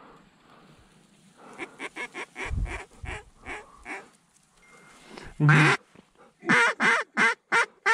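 Mallard duck calling blown to circling ducks: a faint run of short quacks, then one loud call and a quick string of loud, sharp quacks close by near the end.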